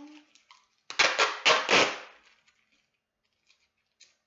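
Duct tape ripped off the roll in a few quick crackling pulls, about a second in, lasting just over a second.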